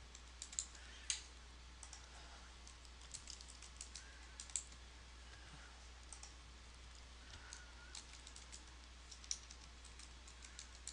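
Faint computer keyboard typing: short spells of keystrokes with pauses between them, over a low steady hum.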